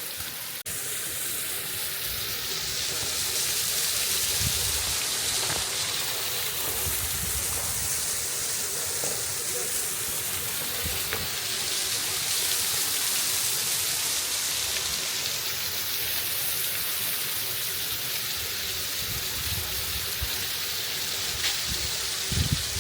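Partly frozen waterfall, water still running down it in a steady rush.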